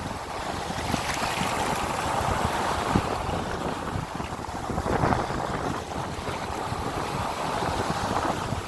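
Ocean waves washing ashore while wind buffets the microphone. The surf swells about a second in and again about five seconds in.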